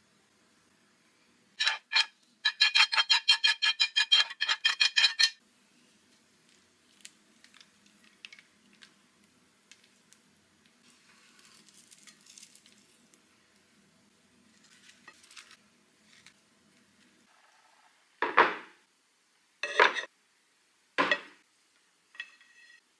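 Utensils clinking against dishes: two knocks, then a fast run of ringing clinks for about three seconds. Soft handling noises follow, then three separate knocks near the end.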